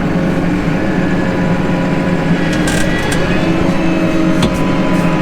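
Tractor engine running steadily under the cab's noise, its engine speed rising slightly a little past halfway.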